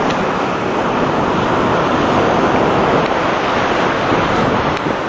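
Storm-driven surf: heavy waves breaking and washing up the beach in a loud, steady rush, with onshore wind blowing across the microphone.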